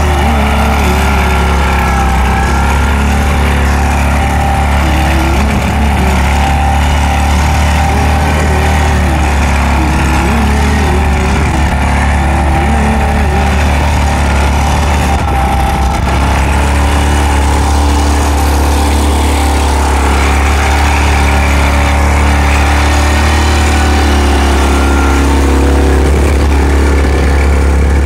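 Walk-behind two-wheel tractor engine running steadily under load as it pulls a plough through the soil.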